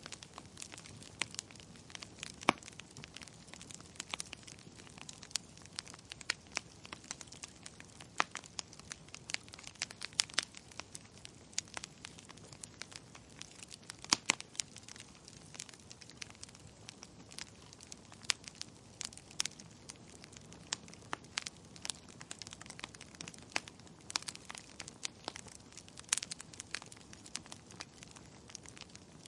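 Wood fire crackling, with burning logs giving off irregular sharp pops and snaps over a faint steady hiss; a few pops stand out louder, about two seconds in, near the middle and near the end.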